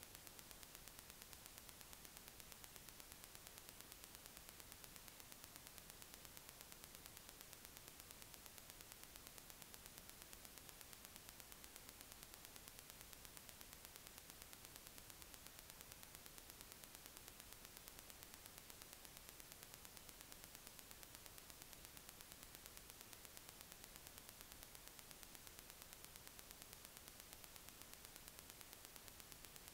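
Near silence: a faint, steady hiss of recording noise, unchanging throughout.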